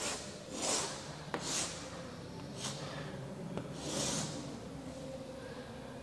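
Chalk scraping across a chalkboard as straight lines are drawn: about four short scratchy strokes, with a few light taps of the chalk against the board between them.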